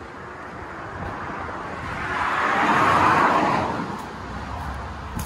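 A road vehicle passing by at speed, its tyre and engine noise swelling to a peak about three seconds in and then fading away.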